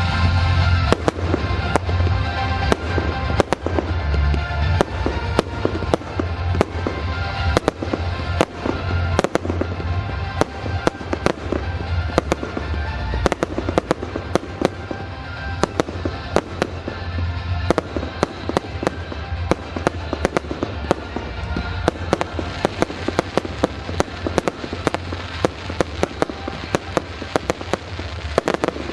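Fireworks display going off: a string of sharp bangs that quicken into rapid reports near the end, with music playing underneath.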